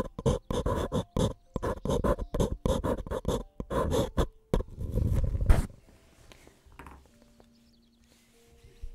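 Close-miked scraping strokes at about three a second, then one longer scrape about five seconds in, fading to faint rustling for the last few seconds.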